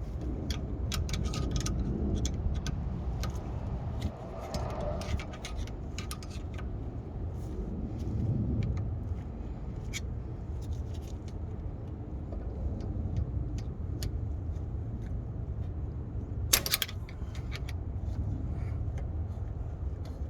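Light metallic clicks and clinks of hand work refitting a parking brake cable to a car's rear brake caliper, scattered throughout, with a louder clatter about three-quarters of the way through. A steady low rumble runs underneath.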